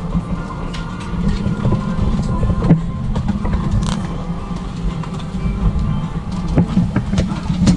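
Steady low rumble of a moving vehicle heard from inside, with frequent rattling clicks.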